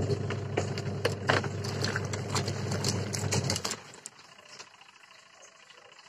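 Top-loading washing machine agitating a sudsy load: the motor hums and the wash churns, with many sharp clicks and knocks that come from a garment's zipper striking the tub. The stroke stops abruptly about three and a half seconds in.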